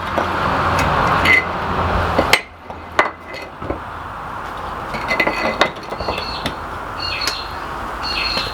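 Steel post-vise parts being handled and knocked together: sharp clinks, some of them ringing, scattered through the second half. A steady noisy hum stops about two seconds in.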